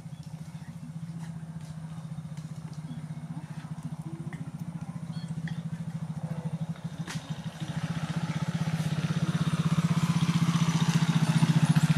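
A motorcycle engine running steadily with a low, even pulse, getting louder from about eight seconds in.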